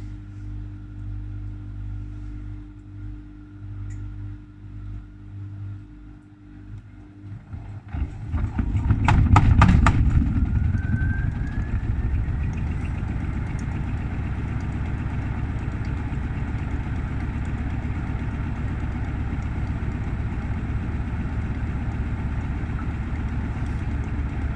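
Gorenje WaveActive washing machine running in test mode with snow in the drum: a steady low motor hum, then about eight seconds in the drum speeds up, with a burst of knocking and a rising motor whine, and settles into a loud steady spin.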